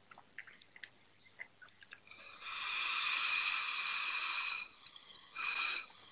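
Vaping on a rebuildable dripping atomiser with a freshly built coil of about 0.2 ohm: a few light clicks, then a steady whistling hiss of air drawn through the atomiser for about two and a half seconds, and a second short pull about five seconds in.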